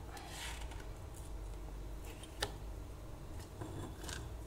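A utensil scraping ground garlic paste out of a stone mortar (cobek): soft scrapes, with one sharp click about two and a half seconds in.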